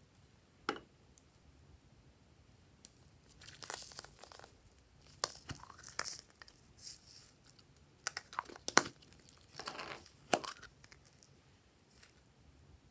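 Small plastic capsules being handled and snapped open, with crinkling and rustling as glitter flakes and confetti are shaken out of them. There are a few sharp plastic clicks, the loudest about nine and ten and a half seconds in.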